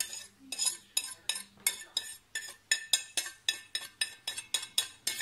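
Wire whisk tapping and scraping on a ceramic plate, pushing spices off into a bowl of flour: quick, even clinks, about four to five a second.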